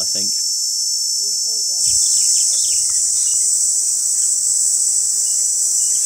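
Steady high-pitched shrill of an insect chorus, growing a little louder about two seconds in, with a few faint short chirps.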